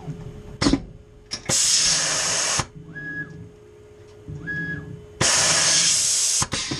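Tormach 440 mill's automatic tool changer swapping in a probe. Short motor whines ramp up, hold and ramp down as the axes and tool carousel move, with sharp clunks. Two loud hissing blasts of compressed air, each about a second long, come from the pneumatic drawbar releasing and gripping the tools.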